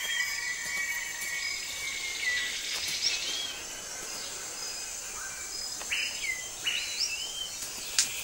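Rainforest ambience: a steady high insect drone with birds calling in short whistled notes that slide up and down in pitch, a few more of them in the second half.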